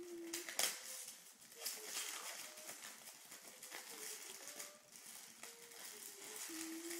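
Paper rustling and crinkling as a wrapped present is opened by hand, with scattered small clicks. A few faint, short, thin steady tones come and go, the longest near the start and near the end.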